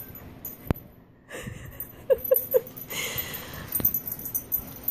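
Small dog making quick noises while playing at a slipper: three short high sounds in quick succession about two seconds in, then a breathy huff, with a click near the start.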